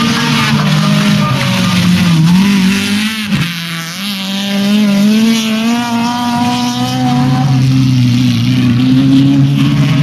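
Engines of under-1600 cc autocross cars revving hard on a dirt track. The pitch climbs and falls as the drivers change gear and lift, with a short drop just after three seconds in before the revs climb again.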